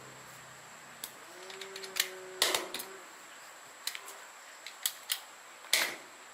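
Irregular sharp clicks and knocks of hard objects being handled, about a dozen, the loudest two near the middle and near the end, over a faint steady high whine.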